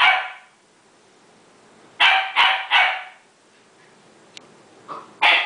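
Bouvier des Flandres puppy barking: three quick barks about two seconds in, then two more near the end.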